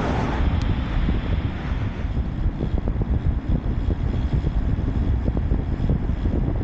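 Wind buffeting the microphone of a camera riding on a moving road bike: a steady, loud low rumble with road and tyre noise mixed in.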